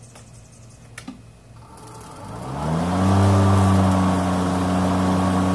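Snapper 60-volt cordless electric lawn mower starting up: a click about a second in, then the motor and blade whir rising in pitch over about a second and settling into a steady hum as the blade reaches speed.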